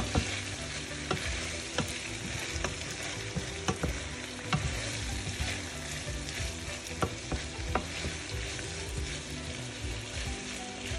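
A wooden spatula stirring ground pork, diced potatoes, carrots and green peas in a sizzling frying pan, with irregular scrapes and taps of the spatula against the pan.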